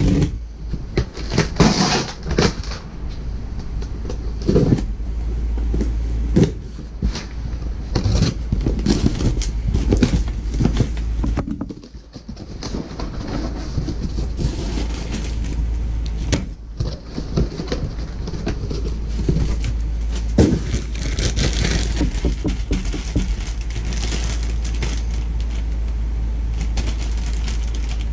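A cardboard box being slit open with a utility knife and its flaps pulled open, then a plastic bag of seals being handled, giving irregular rustling, scraping and small knocks. A steady low rumble sits underneath.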